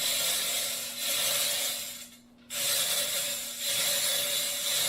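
Long rasping, scraping strokes, each lasting about two seconds, with a short pause between them: hand work on metal machinery.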